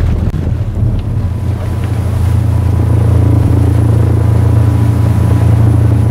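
Motorboat engine running steadily as a loud, low drone.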